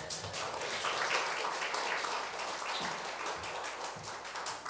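Audience applauding, swelling about a second in and thinning out to scattered claps near the end.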